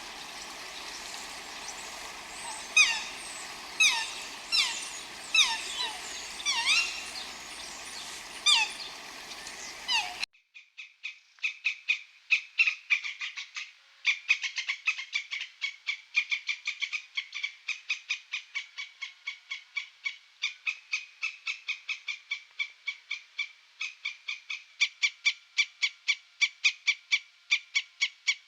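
Animal calls: a series of sharply falling whistled calls over a background hiss, then, after an abrupt cut about ten seconds in, a fast run of short, even-pitched chirps at about four or five a second.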